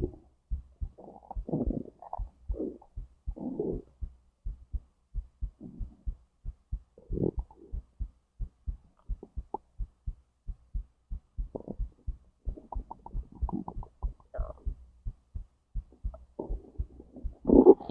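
Human stomach and intestines gurgling and rumbling in irregular bursts over a steady, regular heartbeat. The loudest gurgle comes near the end.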